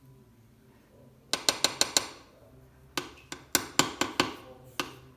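A spatula tapping sharply against a metal loaf pan of cake batter, each tap ringing briefly. The taps come in two quick runs of five or six with a pause between, and one more near the end.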